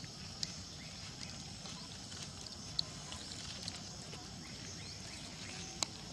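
Steady outdoor background noise with a few brief, high-pitched chirps or ticks, about three in all.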